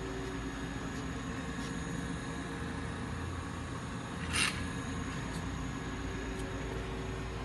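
Okuma LB15 CNC lathe standing powered up, giving a steady machine hum with a few faint steady tones. A short hiss comes about four seconds in.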